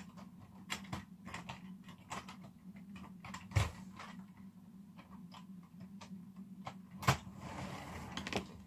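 Clicking and knocking of a plastic brick-built toy train coach being set onto plastic track and coupled, with two louder knocks about three and a half and seven seconds in. Near the end a soft rushing noise as the coach is pushed along the track.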